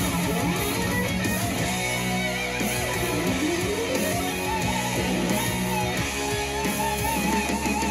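Instrumental music led by guitar, with no singing.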